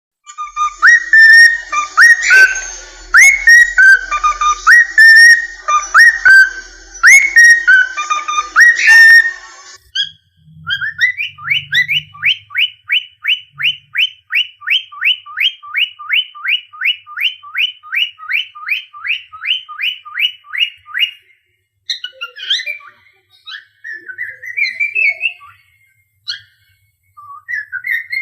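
Cockatiel whistling: a repeated melodic phrase for the first ten seconds or so, then a fast, even run of short rising whistles, about three a second, for roughly ten seconds, then a few scattered chirps and calls.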